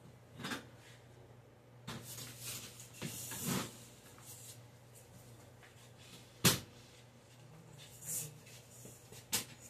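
Metal bars of a foldable LED grow light being handled and moved: scattered knocks and rustling, with one sharp knock about six and a half seconds in, over a steady low hum.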